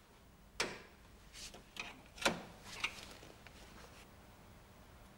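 Plastic clips of a 1985 VW Passat's radiator grille being prised out with a screwdriver: a handful of sharp clicks and snaps over the first three seconds, the loudest a little after two seconds in.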